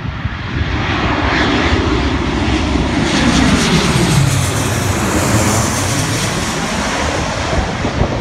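Twin-engine jet airliner passing low overhead on final approach to land. Its engine noise builds to a peak as it passes directly over, about four seconds in, and the pitch falls as it moves away.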